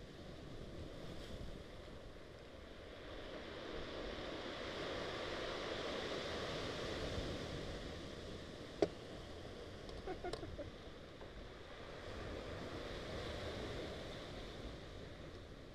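Small sea waves breaking and washing over a pebble-and-rock beach, the surf swelling and easing over a few seconds at a time. A sharp click about nine seconds in and a few more clicks a second later.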